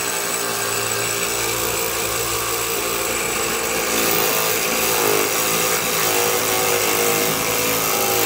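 Jig Saw Jr. toy scroll saw running and cutting through a thin strip of wood with a steady mechanical buzz. It grows a little louder about four seconds in, where the pitch wavers as the wood is pressed down and pushed through the blade.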